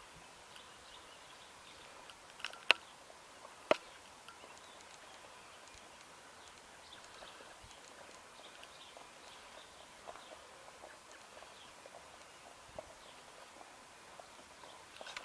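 A horse's hooves moving, faint, with two sharp clicks about a second apart a few seconds in.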